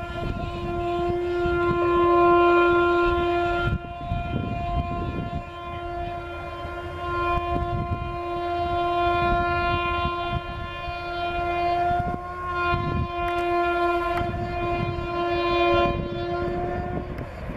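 Horn of an approaching WAP-5 electric locomotive, sounded in long held blasts that break off briefly about four seconds in and again around twelve seconds. The low rumble of the train running along the track sounds underneath.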